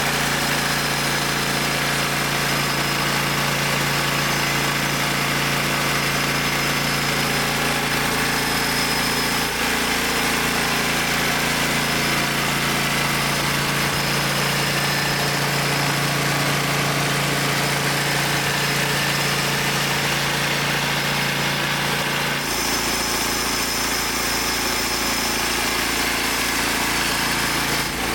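Engine of a homemade band sawmill running steadily, its note shifting slightly about a third of the way in and again near the end.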